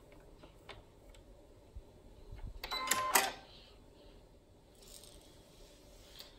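Baby Lock Aventura II sewing machine's threading parts being handled: faint scattered clicks, then a louder cluster of sharp mechanical clicks with a brief metallic ring about three seconds in.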